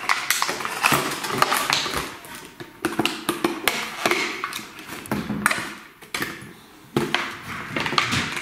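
Clear plastic toy packaging crinkling and crackling as it is handled, with irregular clicks and taps from a hard plastic toy motorcycle being turned over and set down.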